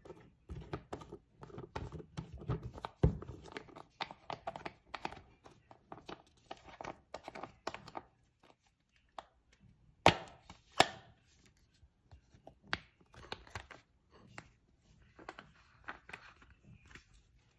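Spice containers handled and shaken over raw seasoned beef: irregular light taps, clicks and rattles, with two sharp, louder clicks about ten seconds in.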